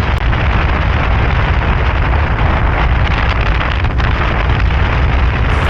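Loud, steady wind rumble on the microphone while riding a motorbike, the engine and road noise blended into it.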